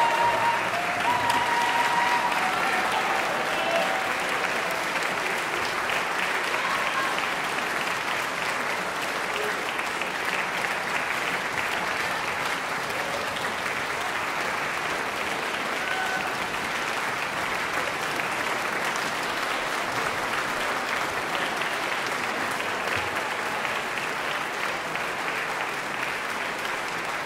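Large audience applauding steadily through the performers' curtain-call bows, easing off slightly.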